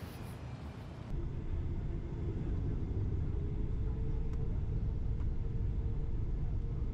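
Faint outdoor ambience for about a second, then the steady low rumble of a jet airliner's cabin as the plane rolls along the runway. The rumble swells over the next couple of seconds, with a faint hum that rises slightly in pitch.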